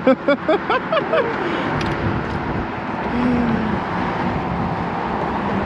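Steady road traffic noise from cars passing on the bridge roadway. In the first second a quick run of short, pitched voice-like sounds.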